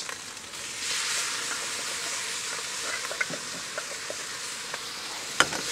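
Korean barbecue sauce poured onto pork belly pieces in a hot pan, sizzling steadily with small crackles and pops; the sizzle swells about a second in. A single sharp knock near the end.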